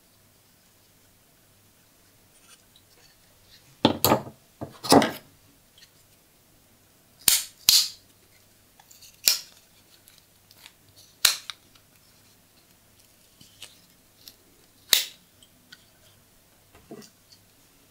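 Blades and tools of old folding pocket knives being opened and snapped shut: an irregular series of sharp metallic clicks and snaps, loudest around four and five seconds in, with lighter ticks between.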